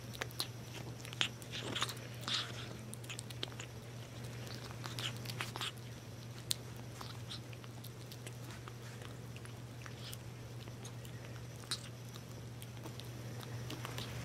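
Tiny kitten eating wet cat food off a paper plate: irregular soft smacking and chewing clicks, busiest in the first half, over a steady low hum.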